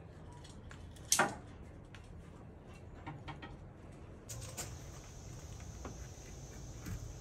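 The sheet-metal door of a wood-fired firebox clanks sharply once, about a second in, followed by small knocks and clicks as the fire is tended. After a few seconds these give way to a steady outdoor hiss.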